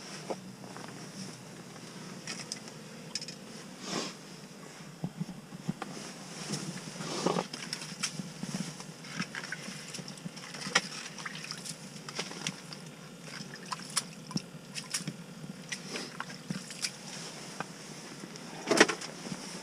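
Slush and ice chips being scooped out of an ice-fishing hole: water sloshing, with scattered scrapes and sharp knocks and one louder knock near the end.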